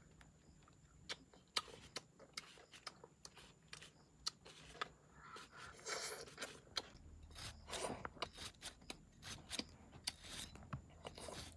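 Small kitchen knife cutting through crisp star fruit, faint irregular clicks and crunches as the blade goes through the flesh and the seeds are picked out, with a few brief rustles.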